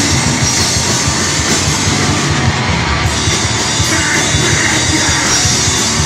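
Blackened hardcore band playing live and loud: distorted electric guitars and bass over steady, dense drumming, with yelled vocals.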